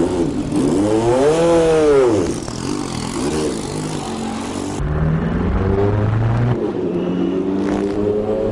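Nissan R90CK's twin-turbo V8 racing engine at high revs: the pitch climbs then drops back in the first couple of seconds. After a cut, it winds up steadily through the revs under acceleration.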